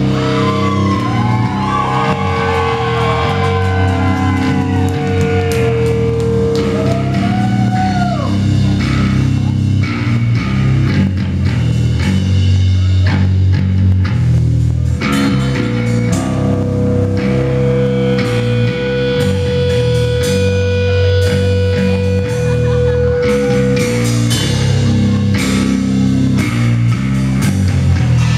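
A heavy metal band playing live, with distorted electric guitar, bass guitar and a drum kit. Over the heavy low end, a lead line bends in pitch in the first several seconds and holds one long note later on.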